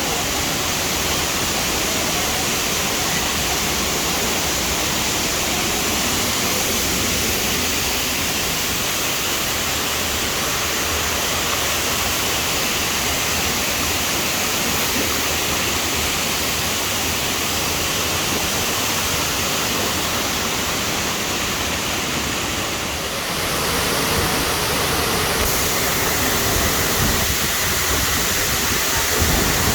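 Waterfall, water rushing in a loud, steady roar of noise. The sound dips briefly and shifts slightly in character about 23 seconds in.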